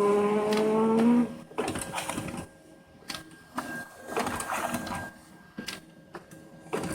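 Printer running with a steady whine that rises slightly in pitch for about the first second, followed by a series of irregular clicks and short mechanical clatters. The owner puts the noise down to one of the rollers.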